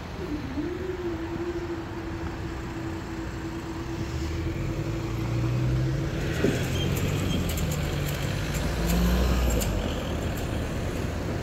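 Road vehicles moving off, with engines accelerating and rising in pitch near the end. A steady hum lasts through the first six seconds or so and ends in a click.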